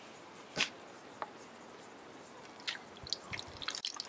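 An insect chirping steadily in a high-pitched, even pulse of about seven chirps a second. A sharp click about half a second in and a few light ticks later come from the plastic bottle being handled with gloved hands.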